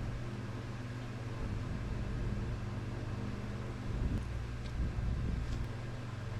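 Steady low mechanical hum with a faint hiss, with a few small clicks and handling bumps about four to five and a half seconds in.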